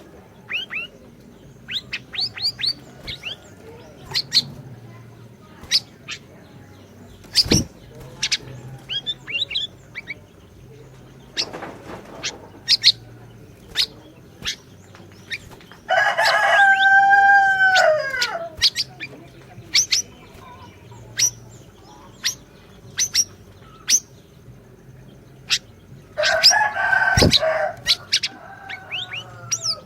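Siri-siri bird song: many short, sharp high chirps and quick trills, with a louder, longer drawn-out call about halfway through that drops at its end, and another loud call near the end.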